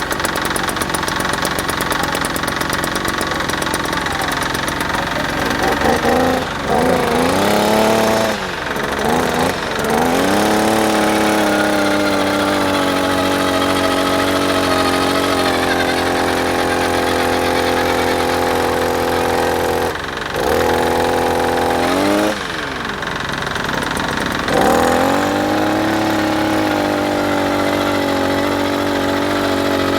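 52 cc two-stroke petrol earth auger engine running at high speed, its pitch dropping and climbing back several times: near the start, about 20 seconds in, and again a couple of seconds later.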